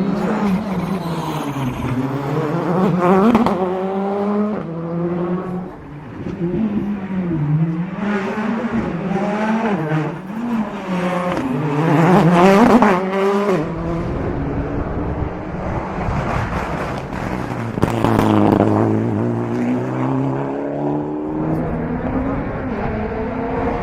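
Rally car engines at full throttle, the pitch climbing and dropping again and again through gear changes and lifts. In the second half a steadier engine note runs, with another hard rev a little past the middle.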